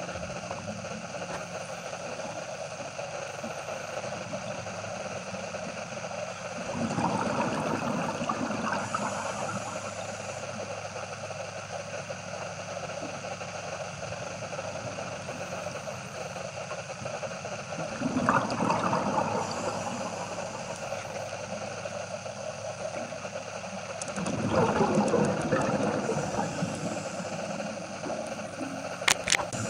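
Underwater sound: a steady low hum, broken three times, about ten seconds apart, by a couple of seconds of bubbling from a scuba diver's exhaled breath. A couple of sharp clicks near the end.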